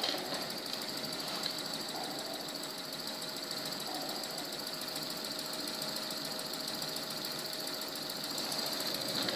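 Double-acting PM Research mini oscillating steam engine starting up and running fast: a rapid, steady patter of exhaust puffs over a hiss.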